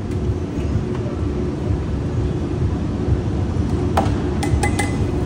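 Steady low rumble of restaurant ventilation fans with a faint hum. About four seconds in come a few sharp, ringing metal clinks as a metal bowl and serving tray are handled.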